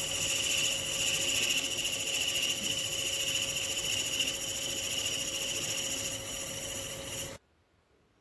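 Small lathe running steadily with a high whine while cutting an ebony plunger. It cuts off abruptly about seven seconds in.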